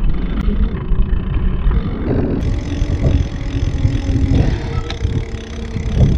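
Steady low rumble of a Specialized Rockhopper mountain bike rolling along a paved path: tyre noise on the pavement mixed with wind on the microphone.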